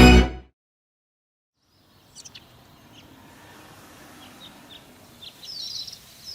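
Music cuts off, followed by a second and a half of dead silence. Faint outdoor ambience then fades in with birds chirping in short high calls that come more often toward the end.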